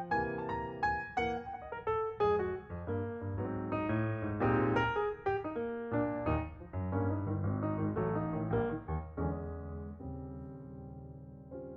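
Background piano music, a run of struck notes that ends on a held chord fading away.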